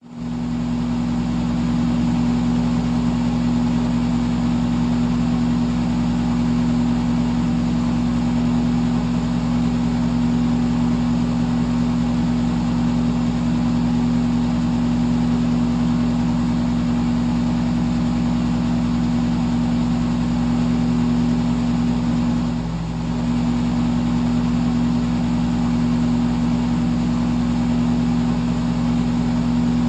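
Electric fan running steadily: a low motor hum made of several steady tones over an even rush of air. It starts abruptly and dips briefly in level about 23 seconds in.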